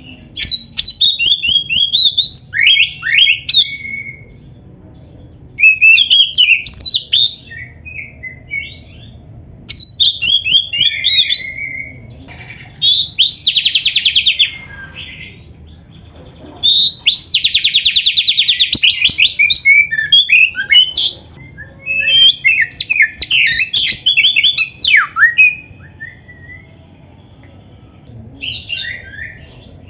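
Oriental magpie-robin (kacer) singing loud, varied phrases in bursts with short pauses between them, a full-fill ('full isian') song packed with borrowed phrases. Twice, in the middle, it holds a long run of rapid, buzzy repeated notes.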